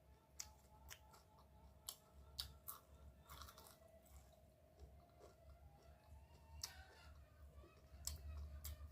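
Faint crunchy chewing of deep-fried rice-field crabs: the crisp shells crack between the teeth in scattered sharp crunches.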